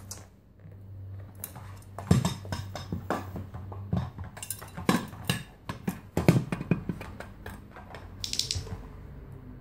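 Small dog's paws and claws knocking and scrabbling on the lid of a hollow faux-leather storage ottoman as it steps and turns about on top: a run of irregular knocks and clicks, over a steady low hum.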